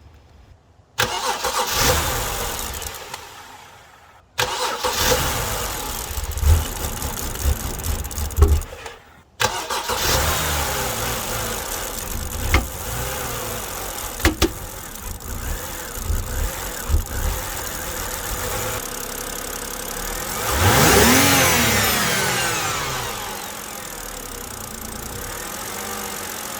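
BMW E90's engine being cranked and firing in several tries, then running, with one brief rev about twenty seconds in before settling to idle. It takes a long time to start and idles unhappily, which the owner puts down to something like a vacuum leak, a bad coil or a bad spark plug.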